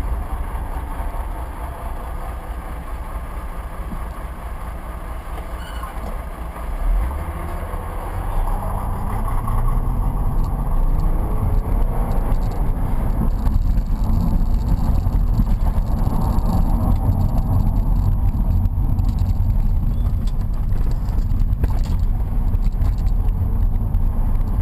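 Chevrolet Omega's 3.8-litre V6 heard from inside the cabin while driving, with road rumble. It runs lightly at first, then about seven seconds in the engine is pressed harder, rising in pitch as the car accelerates, and stays loud after that.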